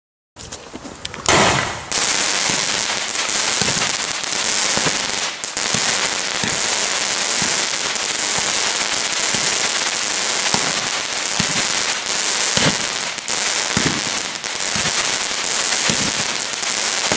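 Wolff Phoenix 25-shot consumer fireworks cake firing: after a loud bang about a second in, a dense, continuous crackling runs on, broken by repeated dull thumps as the shots go off.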